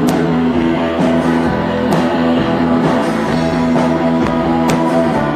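Live rock band playing a post-punk song: electric guitar and drums, with occasional cymbal crashes.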